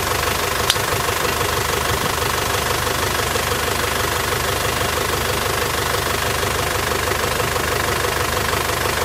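A motor running at a steady speed: an even, unchanging drone, with one small click a little under a second in.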